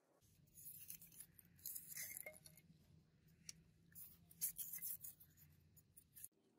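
Faint scratching, rubbing and light clicks as small foam pattern pieces are handled and pushed onto a wire on a wooden table, over a low steady hum that stops near the end.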